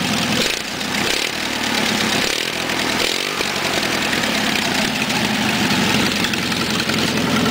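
1980 Dayton GT garden tractor's 20 hp engine running steadily at idle with no exhaust fitted, in good running order with its freshly rebuilt fuel system.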